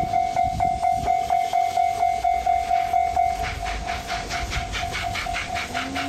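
Japanese level-crossing warning bell ringing steadily, about three strikes a second. About three seconds in, a rhythmic hissing joins at the same pace, and a low steady tone starts near the end.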